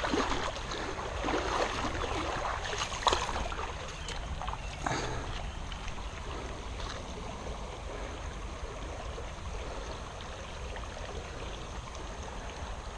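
Creek water running steadily, with a few short knocks and rustles in the first five seconds.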